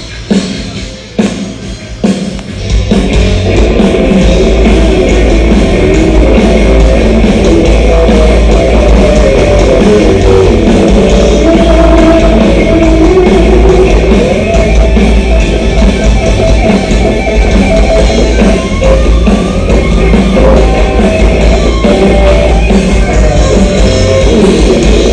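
A rock band's soundcheck heard from the street outside the venue. A few separate drum hits come first, then about three seconds in the full band comes in loud, with distorted electric guitars, bass and drum kit, and keeps playing.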